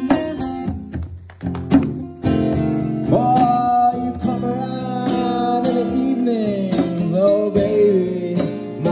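Acoustic guitar strumming a blues. About three seconds in, a man's voice joins with long held sung notes that slide down and waver near the end.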